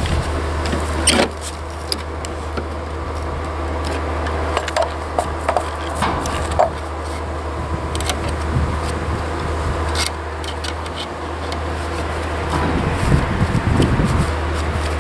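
Scattered knocks, clicks and scraping from hand work on a wooden column formwork box as its wire ties and braces are fitted, with a sharper knock about a second in, over a steady low hum.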